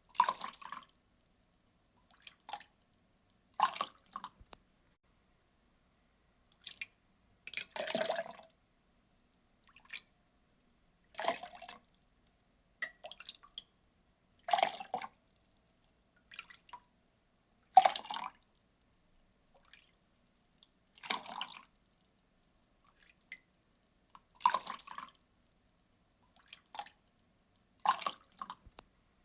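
Water poured or splashed in short separate spurts, each under a second, every second or two with silent gaps between. The louder splashes come about every three seconds.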